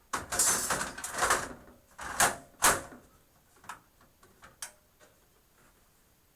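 Clattering and scraping of hard drives in plastic toolless caddies being handled and set in place, for about three seconds with a few sharp knocks, then a few light clicks.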